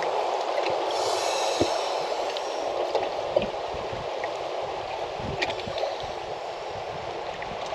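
Water washing steadily, with scattered small knocks and splashes, and a brief hiss about a second in.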